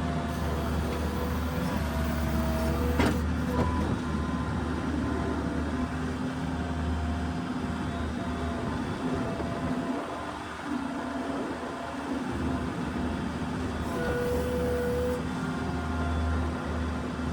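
New Holland skid steer running steadily, with a low engine hum under higher whining tones that come and go, and a sharp click about three seconds in.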